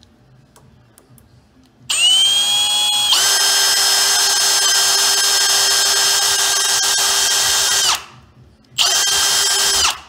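Electric drill/driver running, driving the long through-bolts that hold the deadbolt's mounting plate to the door. It starts about two seconds in with a steady whine that steps up higher about a second later, runs for about six seconds in all, then a second short run of about a second comes near the end.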